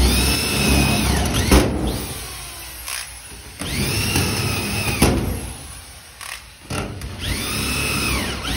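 Corded drywall screw gun driving 1-1/4-inch hex-head screws through a steel spare tire mount into a trailer's plywood wall. The motor whines three times, each run spinning up, holding and winding down, and each ends in a sharp click.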